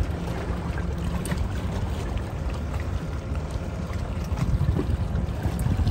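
Wind buffeting the microphone outdoors by the water: a steady low rumble that swells and dips.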